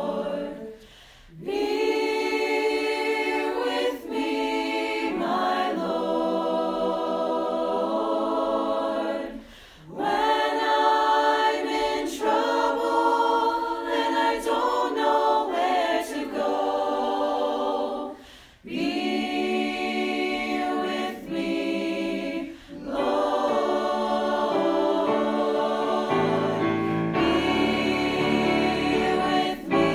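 A college chapel choir singing sacred music in long phrases, with three short breaks between them. Lower voices come in near the end.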